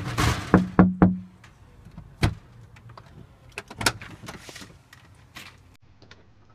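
Irregular sharp knocks and clicks at a glass-panelled front door, densest in the first second, with a brief low hum about half a second in. Scattered single clicks follow before the door is opened.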